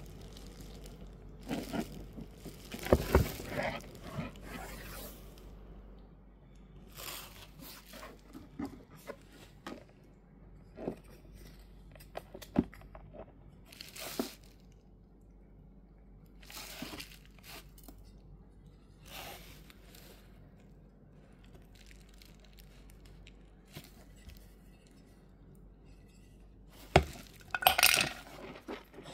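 Hands handling a vinyl collectible figure and its metal can on a table: scattered clicks, scrapes and light clinks. A cluster of louder knocks and scrapes comes near the end as the metal can is picked up.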